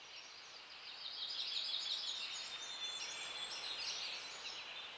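Faint nature ambience of small birds chirping and twittering, many quick high chirps that swell about a second in and ease off near the end.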